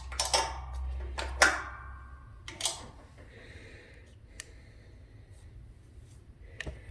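Metal tools and parts clinking and knocking during hand work on a riding mower's starter, with a few sharp knocks in the first three seconds and lighter clicks after. A low hum stops about two seconds in.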